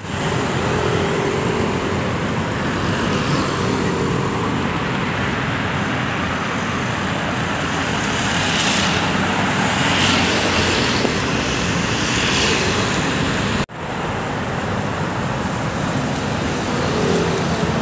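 Steady road traffic noise from cars passing on a busy multi-lane road, cutting out for an instant about two-thirds of the way through.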